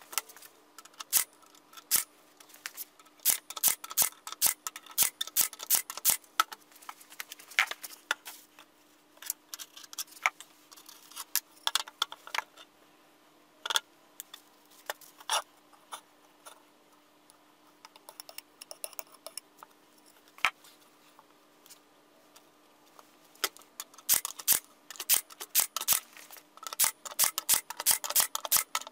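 Many short, sharp clicks and knocks, some in quick runs, from wooden pieces and tools being handled and set down on a plywood work surface. A faint steady hum lies underneath.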